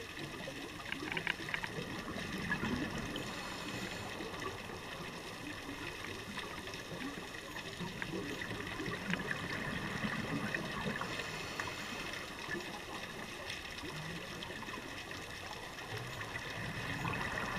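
Underwater ambience recorded below the surface: a steady muffled hiss of moving water with a few faint clicks and gentle swells in level.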